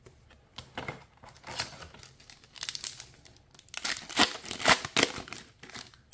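Foil trading-card booster pack crinkling and tearing as it is ripped open by hand, with irregular crackles that are loudest about four to five seconds in.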